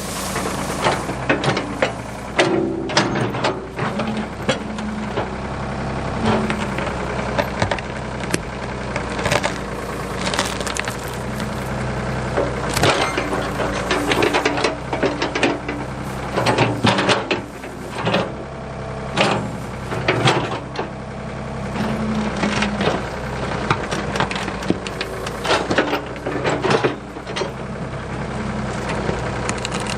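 Ford 555 backhoe's engine running steadily while wood repeatedly cracks, snaps and splinters as brush and small trees are broken and pushed over.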